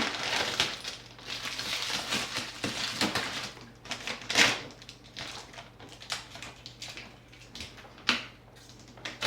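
Packing material being handled and pulled away while a vacuum cleaner is unboxed: irregular rustling and crunching, with one loud crunch about four and a half seconds in.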